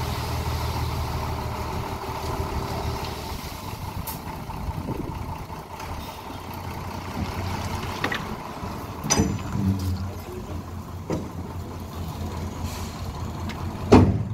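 Tipper dump truck's engine running steadily while its raised bed empties the last of the sand, the engine note dropping and getting quieter about three seconds in. Several sharp metal knocks and bangs follow in the second half, the loudest near the end, as the empty bed is handled and lowered.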